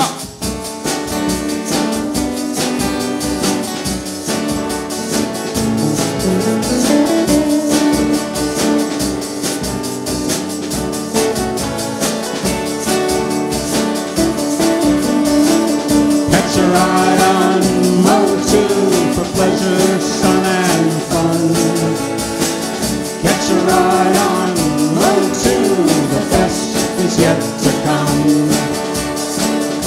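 Live band playing: electric and acoustic guitars over a drum kit, with a voice singing.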